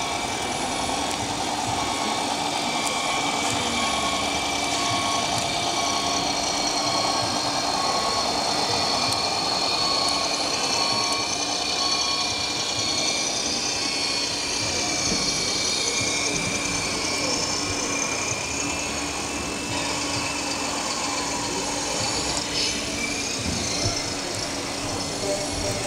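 Scale RC model fire engines' electronic sound modules playing truck engine sound, with a repeating electronic beep through the first half, over the chatter of an exhibition hall.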